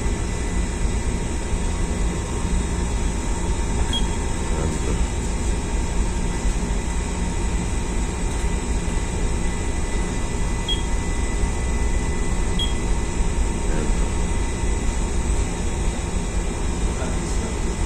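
Steady ship's ventilation and machinery noise: a constant low hum and rush with a thin steady high tone, and a few short high beeps spaced several seconds apart.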